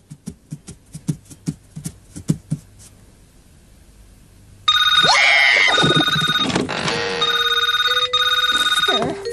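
Light, irregular tapping for the first couple of seconds, then a short quiet, then a telephone suddenly starts ringing loudly a little before the five-second mark, in repeated trilling bursts.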